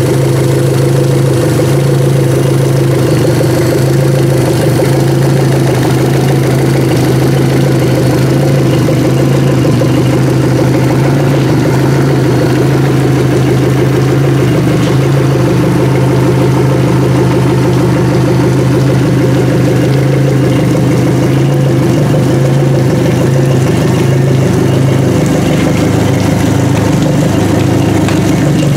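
2004 Yamaha F150 four-stroke outboard motor, a 2.7-litre inline four, idling steadily with its cowling off.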